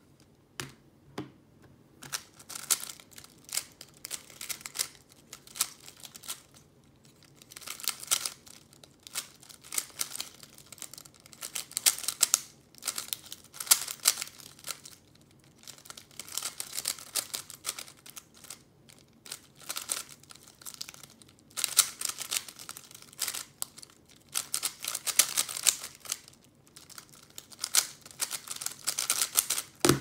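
Plastic 3x3 speed cube being turned rapidly during a timed solve: fast, dense clacking of the layers in bursts of a few seconds, broken by brief pauses.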